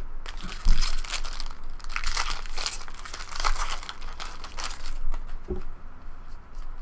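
Foil trading-card pack wrapper crinkling and crackling as it is handled and torn open, with a dull knock about a second in.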